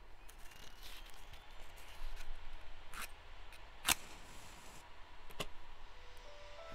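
A few sharp clicks and scrapes of small objects being handled, the loudest about four seconds in. A simple melody of single notes starts near the end.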